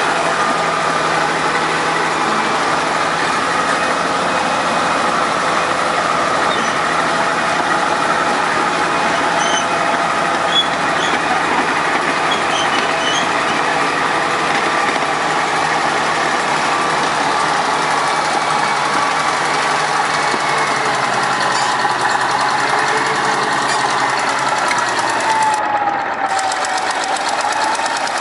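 Engine of heavy road-building machinery running steadily, with a brief dip and recovery in pitch near the end.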